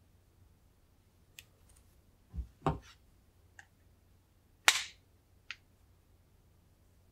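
AirPods Pro charging case in a carbon fibre cover being handled: two low knocks about two and a half seconds in, then the hinged lid snapping shut with one sharp click a couple of seconds later, among a few light clicks.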